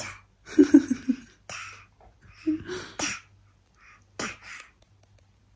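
A baby making short, breathy babbling sounds and huffs in about six separate bursts, with two brief voiced babbles among them.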